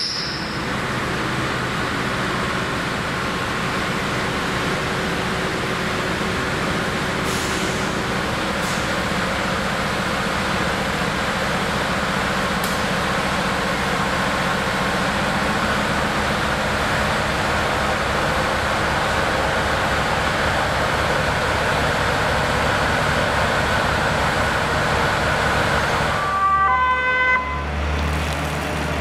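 Airport crash tender's diesel engine idling steadily with an even low throb. About three seconds before the end it gives way to the moving truck's louder, deeper engine with its siren sounding in stepped tones.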